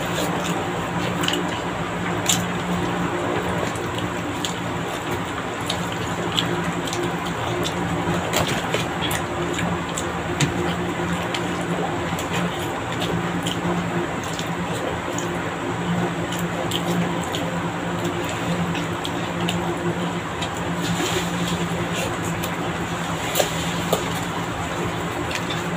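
Mukbang eating sounds: chewing of chicken adobo and rice, with scattered short clicks of utensils and dishes, over a steady low hum.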